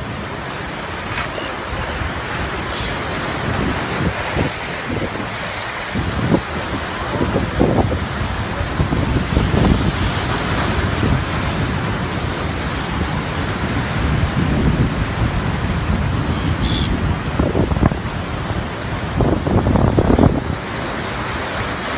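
Sea surf washing and breaking, with wind buffeting the microphone in gusts.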